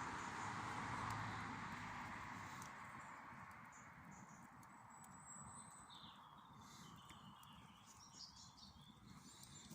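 Faint outdoor evening ambience: a soft swell of steady noise that fades away over the first few seconds, then scattered faint bird chirps and a few light clicks.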